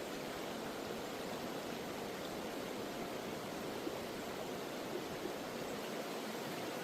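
Small mountain waterfall pouring into a stream, a steady, even rush of falling water.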